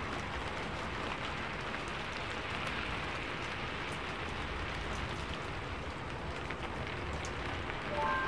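Steady rain falling, an even hiss with faint scattered drop ticks. A few brief high tones come in just at the end.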